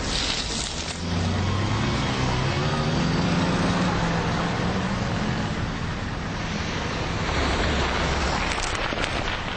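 Road traffic: cars driving past, with one vehicle's engine hum prominent from about a second in, and a few short clicks near the end.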